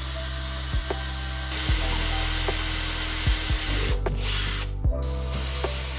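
Cordless drill running steadily as its twist bit bores into a fibreboard desktop, with a steady high whine. It stops about four seconds in, runs again briefly, then stops near five seconds.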